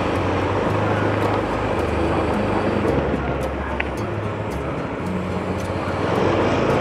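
A vehicle engine running under way, with a steady rush of road and wind noise. Its low hum shifts pitch every second or so.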